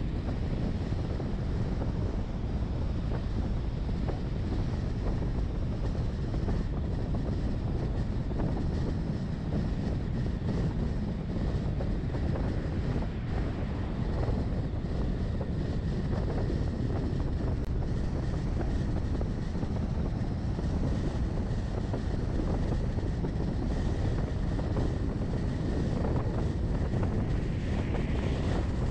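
Steady low rumble of a vehicle driving at road speed, tyre and wind noise, with wind buffeting the microphone.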